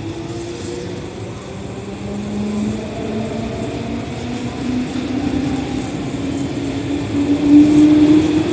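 Meitetsu Panorama Super electric train pulling out of a station platform, the hum of its motors rising steadily in pitch as it gathers speed and growing louder.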